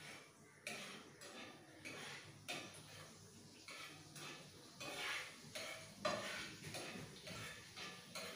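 A metal utensil scraping and knocking against a kadai in repeated stirring strokes, about two a second.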